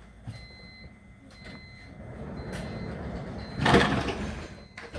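Train door-closing warning signal, a short high beep repeating about once a second, while the doors slide shut with a loud rush of noise a little past halfway and a low rumble builds as the train gets under way.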